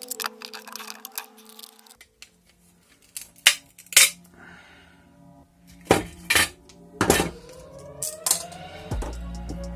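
Pliers and a crumpled aluminium-sheet mould clinking and crackling as the foil is torn off a hardened hot-glue handle, with about half a dozen sharp metallic clinks and knocks on a wooden table.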